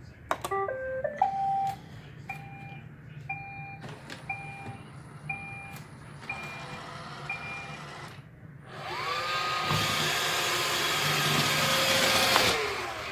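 iRobot Roomba robot vacuum: a quick run of electronic tones, then a beep repeating about once a second for several seconds. About nine seconds in, its vacuum motor and brushes spin up with a rising whine, run loudly, then wind down near the end.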